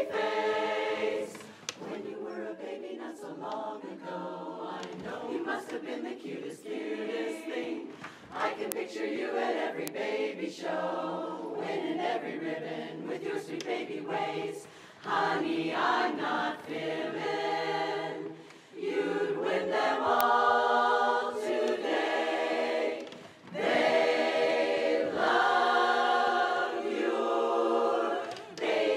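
Women's barbershop chorus singing a cappella in close four-part harmony, in phrases with brief breaths between them, growing fuller and louder in the second half.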